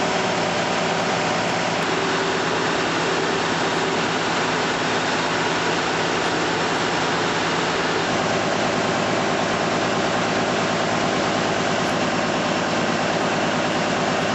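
Steady, loud drone of running machinery, engine-like, with a constant low hum.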